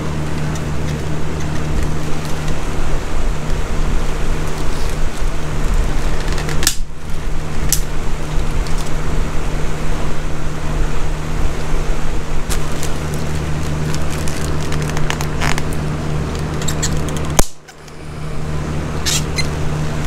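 A steady whirring hum with a constant low drone, from a running machine. Over it come a few sharp clicks and rattles as a plastic fuel pump and sender assembly is handled. The sound cuts out sharply for a moment about three quarters of the way through.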